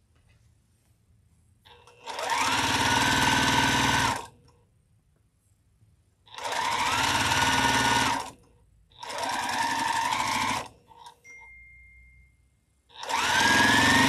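Juki sewing machine stitching in four short runs of about two seconds each, with brief pauses between; each run starts with a rising whine as the motor speeds up.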